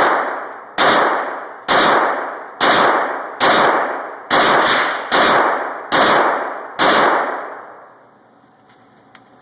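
Ruger SR22 .22 LR pistol firing about ten shots at a steady pace of roughly one a second, each shot sharp and echoing; the firing stops about seven seconds in.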